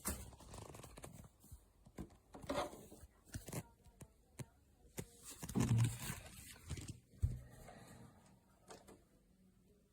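Irregular clicks, knocks and brief rustling noises, loudest with two thumps about six and seven seconds in, then growing quieter toward the end.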